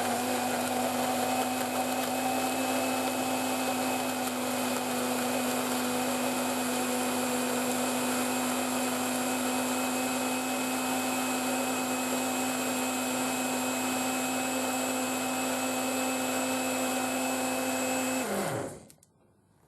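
Morphy Richards Easy Blend personal blender motor running steadily on its high setting, blending milk, raspberries, ice cubes and yogurt into a smoothie. Near the end the motor is switched off and winds down, its whine falling in pitch and fading out.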